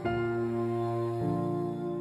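Background music of slow, held chords, the chord changing about a second in.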